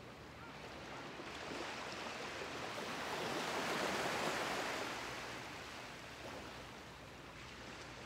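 Small sea waves washing onto a sandy shore: a rush of surf that builds to a peak about halfway through and then ebbs away.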